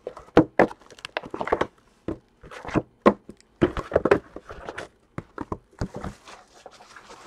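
A Bowman Sterling baseball card box being opened by hand: cardboard rustling and sliding, with many irregular light knocks as the inner boxes are pulled out and stacked on the table.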